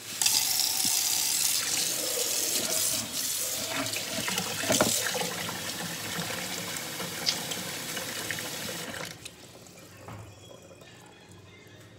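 Water running from a tap in a steady rush that starts abruptly and shuts off about nine seconds in.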